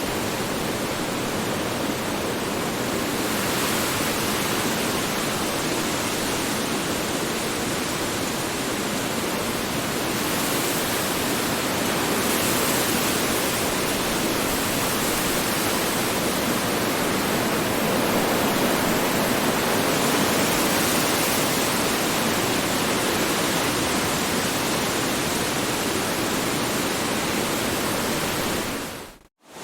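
Strong wind blowing steadily: a dense rushing noise that swells and eases slowly. It cuts out abruptly to silence for a moment just before the end, then comes back.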